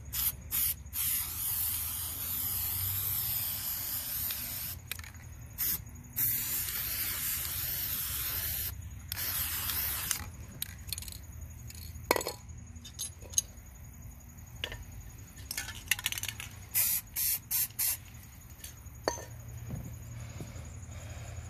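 Aerosol spray paint can spraying: several long hissing sprays over the first ten seconds, then a run of short quick puffs.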